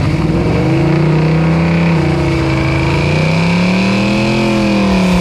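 Car engine running and revving, its pitch rising and falling smoothly, highest about four seconds in.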